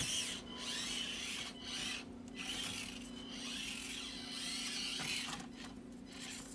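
Axial SCX24 Deadbolt mini RC crawler's small electric motor and gears whining, rising and falling in pitch as the throttle is worked and cutting out briefly several times, over a steady low hum.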